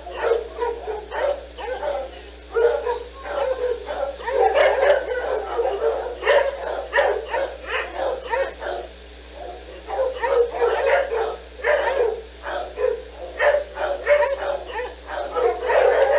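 A group of dogs barking over one another, short barks following in quick succession with several dogs calling at once.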